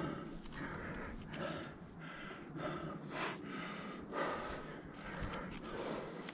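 A person breathing hard close to the microphone, quick rasping breaths about every half second.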